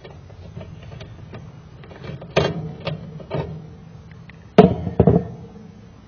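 Hand tools and a replacement condenser contactor clicking and knocking against the electrical box while the contactor is screwed down. There are a few sharp clacks about two and a half to three and a half seconds in, and the loudest knocks come near the end.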